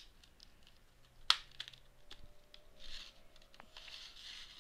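Clear plastic packaging handled as earphones and their cable are pulled out of it: one sharp plastic click about a second in, a few light ticks, then soft plastic rustling.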